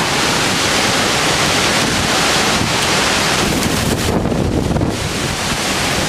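Storm-force wind and heavy, driving rain, a loud, steady rushing hiss, with gusts buffeting the microphone. The high hiss eases briefly about four seconds in, then returns.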